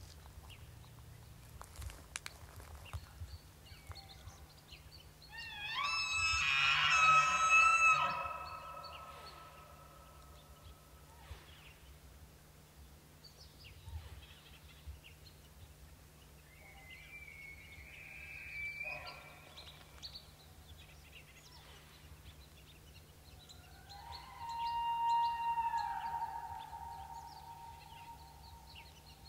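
Bull elk bugling three times as he answers elk calls. The first bugle, about six seconds in, is the loudest and longest and rises into a high whistle with many overtones. A shorter high whistle follows in the middle, and a last bugle near the end holds one tone and tails off.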